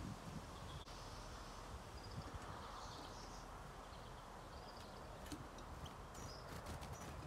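Faint, short high chirps of European goldfinches calling over a steady low rumble of wind, with a few light clicks in the second half.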